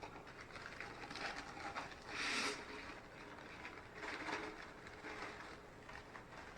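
Pringles chips being tipped from their cardboard can into a plastic Ziploc bag: faint, irregular rustling and rattling, with a louder rustle about two seconds in.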